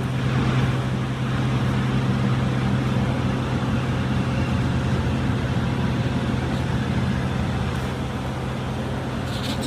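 Heavy engine running steadily at a constant speed, a low even drone with no revving.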